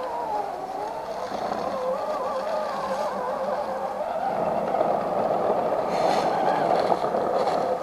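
Axial SCX10 II 1:10 RC crawler's electric motor and gearbox whining as it drives, the pitch wavering up and down with the throttle.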